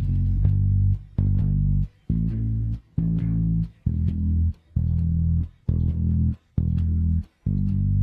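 Isolated electric bass guitar part playing alone: low plucked notes about one a second, each held and then briefly cut off before the next, with a click at each attack.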